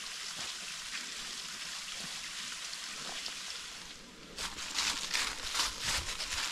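Small waterfall splashing down a sandstone ledge, a steady hiss of falling water. About four seconds in it gives way to footsteps on a sandy, pebbly trail, several steps a second and louder than the water.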